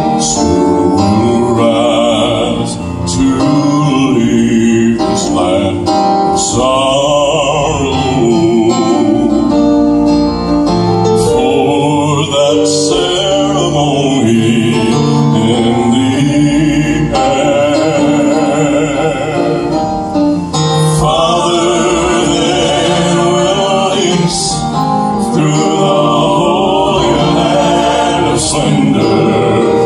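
Southern gospel male vocal quartet singing in close harmony, accompanied by grand piano, the sound amplified through a PA.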